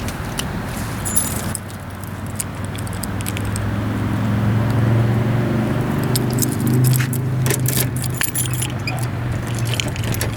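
Car engine running steadily, getting louder over the first few seconds and rising a little in pitch later on, with keys jangling and clicking.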